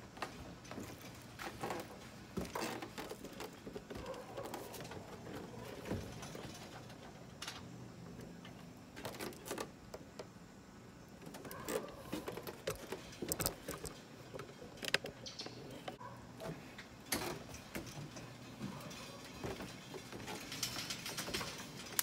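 Scattered light clicks, knocks and rattles of a Char-Griller charcoal grill being handled, with its lid opened over the lit coals in the second half.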